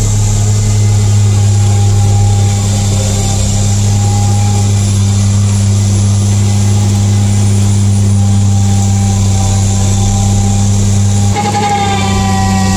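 CAT wheel loader's diesel engine and Contant snowblower attachment running hard while chewing through a snow pile: a loud, steady low drone with a hiss on top. Near the end the sound changes suddenly to a higher, whining mix of tones.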